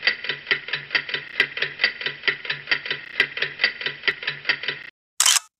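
Intro music: a quick, ticking plucked-string figure of about four to five notes a second over a low bass pulse, which stops abruptly near the end. A brief burst of noise follows.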